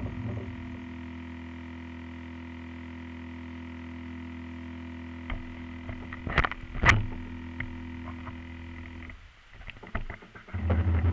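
Steady low electrical hum picked up by the onboard camera of a radio-controlled model plane sitting on the ground with its propeller stopped. Two sharp knocks come about six and a half and seven seconds in, the hum drops out briefly, then comes back louder near the end.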